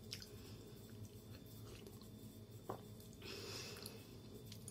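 Faint mouth sounds of a person sipping coffee and chewing, with a few soft clicks, over a low steady hum.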